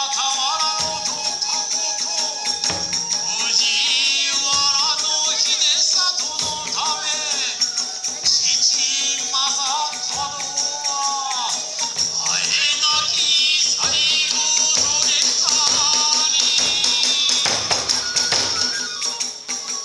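Iwami kagura hayashi accompaniment: drums beaten in a steady driving rhythm under continuously clashing tebyoshi hand cymbals, with a bamboo fue flute playing a wavering, ornamented melody.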